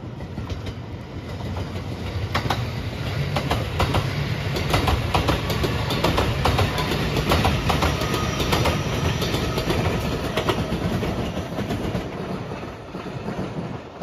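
Rapid Marine Liner electric multiple unit (JR 5000 series and 223-5000 series cars) passing at speed, its wheels clicking over the rail joints. The sound builds as the train nears, is loudest while the cars go by close, then fades as it moves away near the end.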